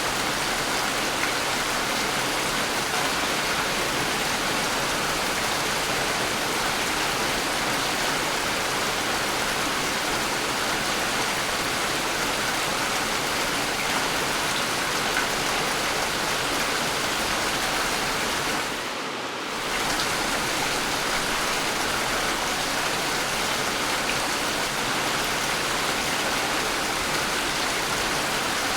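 Steady, dense rain falling, an even hiss of many drops. About two-thirds of the way through it briefly dips in level and comes back.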